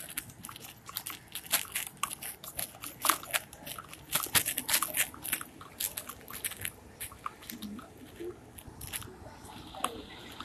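Crackling and rustling handling noise on a body-worn police camera as its wearer moves about: a dense, irregular run of sharp clicks and crunches from the microphone rubbing against clothing.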